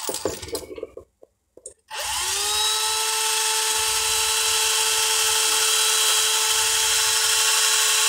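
Small battery-powered Ryobi drill motor with a small bit. It spins up about two seconds in and runs at a steady speed with an even whine, drilling a small hole in the plastic of an alternator regulator's brush holder to free the brush spring.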